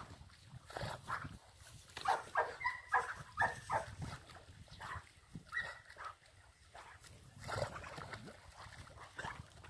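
Dog barking and yelping in short, quick bursts, a cluster of them about two to four seconds in and a few more later.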